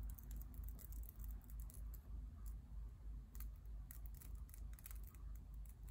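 Wig lace being cut close to the hairline: a string of small, irregular, crisp clicks and snips. A low hum runs underneath.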